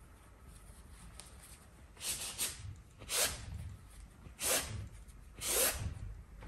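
A cloth rag wiping across a stretched oil-painting canvas in four short strokes about a second apart, each a brief swish with a dull thump from the canvas.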